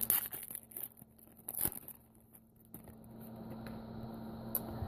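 A trading-card pack wrapper rustling as it is torn open and the cards are handled, with a few short crinkles in the first two seconds.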